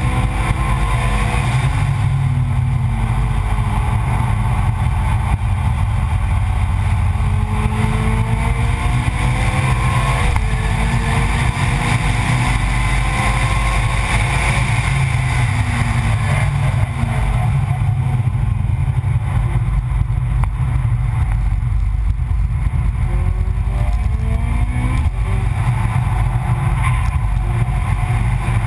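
Car engine at speed on a race track, heard from a low-mounted onboard camera: its pitch repeatedly climbs under acceleration, breaks off at gear changes and drops for corners, over a heavy low rumble of wind and road noise.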